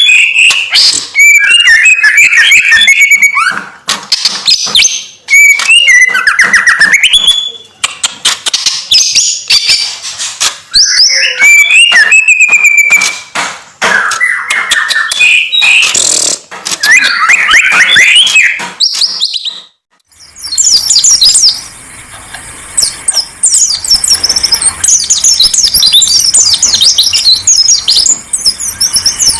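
Songbirds singing loudly. A varied song with whistled glides and sharp clicks is followed, after a brief break about two-thirds of the way in, by a different, higher and quicker twittering over a steady hiss.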